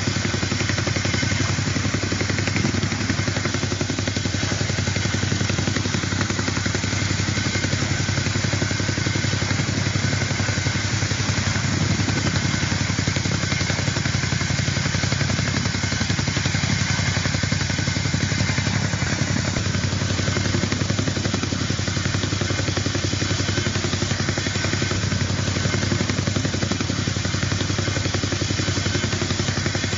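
Helicopter engine and rotor running steadily, heard on board: a constant hum with a fast, even beat.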